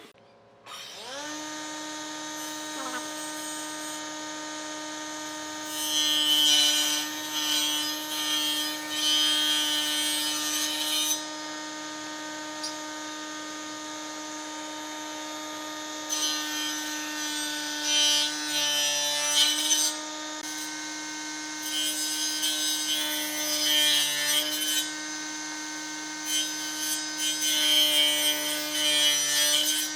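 An electric power tool spins up to a steady high whine and runs, cutting into wood in four passes of several seconds each, its pitch dipping slightly under load.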